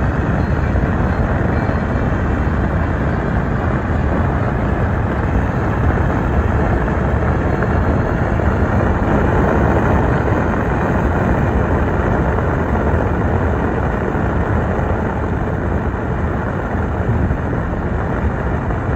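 Extremely loud, steady wind rush inside a Tesla Cybertruck's cabin, strongest in the low and middle range. It comes from air forcing past a front door window that sits out of line, because the door was mounted incorrectly.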